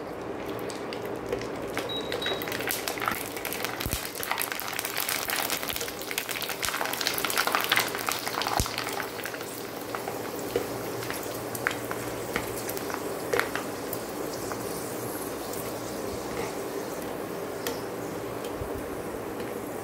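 Rice-flour vadiyalu (sun-dried rice papads) deep-frying in hot oil, sizzling and crackling as they puff up, the crackle strongest in the first half and settling to a steadier sizzle. A wire spider skimmer stirs through the oil, with a few light clinks against the pan.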